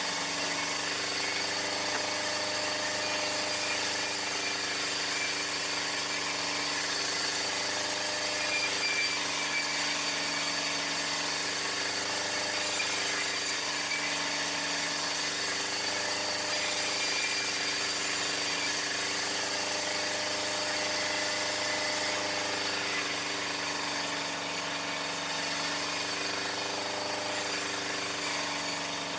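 Sawmill machinery running steadily with a constant mechanical drone and rattle.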